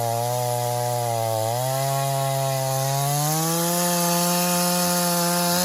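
Two-stroke Echo chainsaw cutting through a log, its engine speed wavering under the load of the cut, then climbing to a higher, steady speed about three seconds in.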